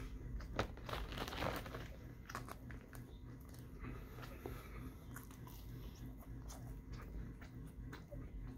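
A person chewing and biting seasoned fries close to the microphone: wet mouth sounds with many small crisp clicks, one sharp click standing out just over half a second in.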